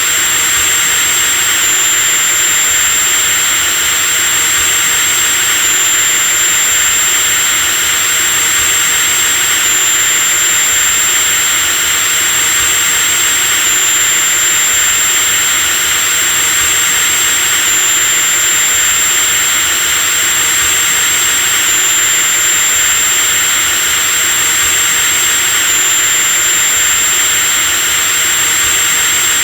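Electric drill running continuously at a steady speed: a dense whir with a high, steady whine on top that shifts slightly about every four seconds.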